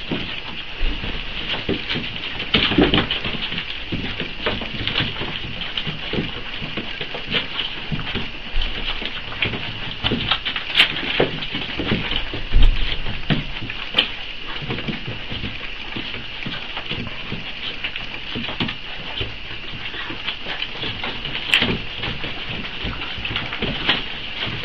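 Four-week-old Boxer puppies suckling from their mother: a dense, continuous patter of small wet smacking and clicking sounds, with a few louder knocks as the litter jostles on newspaper.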